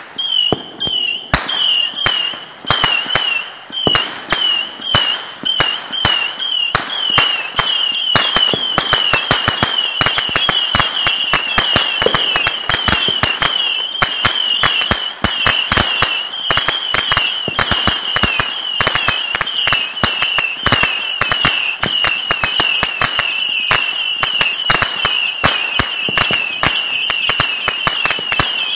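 Consumer ground fireworks going off: a high, wavering whistle over a stream of sharp pops and crackles. The pops come about one to two a second at first and turn into a rapid, dense crackle after about eight seconds.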